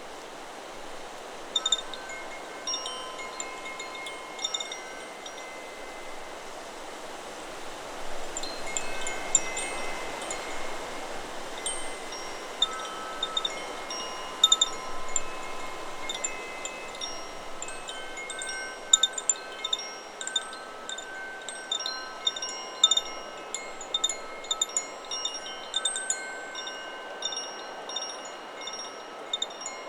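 Chakra Chimes 'Solar Plexus' wind chime ringing in the wind, its tubes struck at irregular intervals with several tones each. The strikes are sparse at first and come much more often from about eight seconds in, over a steady rush of wind.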